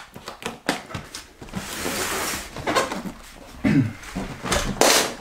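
A cardboard fireworks box being handled and moved away, with cardboard rustling and scraping, knocks, and a louder scrape or thud near the end.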